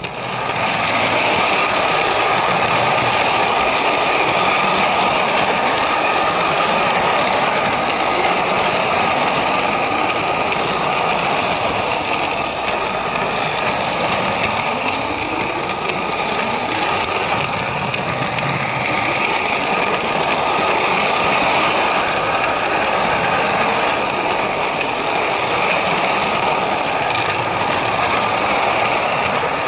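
Electric motor and gears of a model train locomotive running along its track, heard right up close: a steady mechanical whine with gear rattle that cuts in abruptly and keeps an even level.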